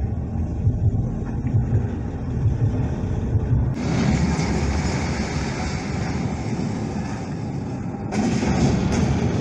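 A film soundtrack played loud through a cinema's speakers: a continuous low engine-like rumble. About four seconds in, a broad rushing noise joins it, and it grows louder again near the end.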